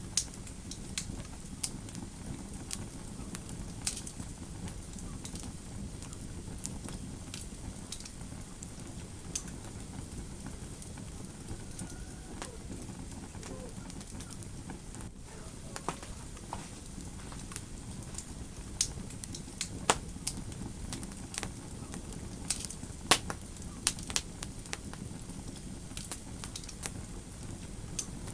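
Wood fire in a fireplace crackling, with sharp irregular snaps and pops over a steady low rumble. The pops come thicker and louder in the second half.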